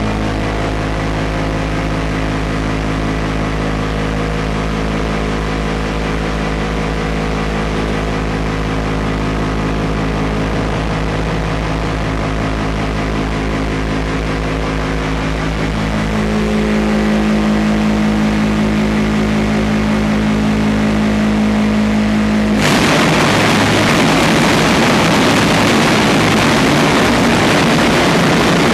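Steady machinery hum with several steady tones from the automated pallet-stacking rack. About two-thirds of the way through, one tone strengthens and the sound gets a little louder. Some six seconds before the end it switches abruptly to a harsher, even machine noise.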